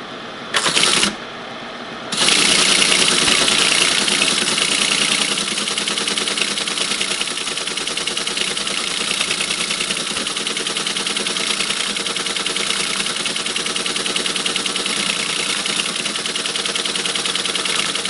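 1964 Teletype ASR-33 printing: a short clatter about half a second in, then from about two seconds in a continuous, rapid, even clatter of the print mechanism as it types out a run of output.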